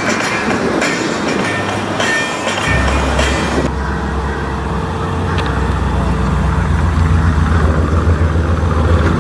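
About three seconds in, a deep, pulsing low rumble takes over: a custom 1960s Chevrolet C10 pickup's engine running as the truck drives slowly past, getting louder toward the end. Before that, a hissier, noisier sound with little low end.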